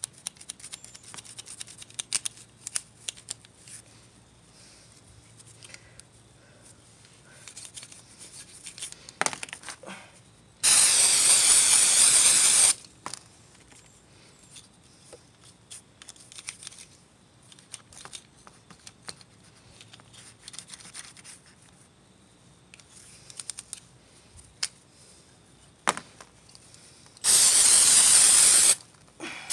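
Aerosol throttle body cleaner sprayed in two long hissing bursts, one about 11 seconds in and one near the end, to wash carbon deposits out of a dirty removed throttle body. Between the sprays there are quieter scratchy brushing sounds and light clicks from the metal throttle body being handled.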